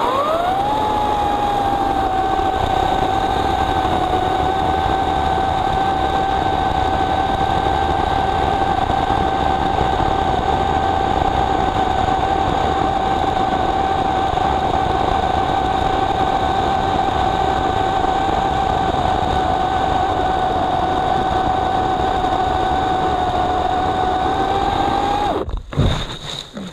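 EGO CS1800 cordless electric chainsaw spinning up and cutting steadily through a large log: a high, even motor whine over the rasp of the chain in the wood. The whine drops away about 25 seconds in as the trigger is released.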